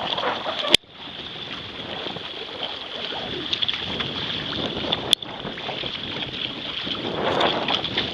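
Water rushing and lapping along the hull of a Hobie Tandem Island sailing kayak under sail, with wind on the microphone. Two sharp clicks, about a second in and about five seconds in, are each followed by a brief dip in the sound.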